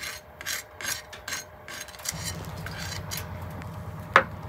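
A folding knife's blade sawing across the crisp, pan-toasted crust of a baked hoppang, about five short rasping strokes over the first two seconds. A low steady hum then comes in, with a single sharp tap near the end.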